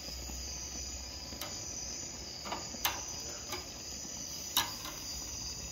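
A steady, high-pitched insect chorus, with a few short sharp clicks scattered through it.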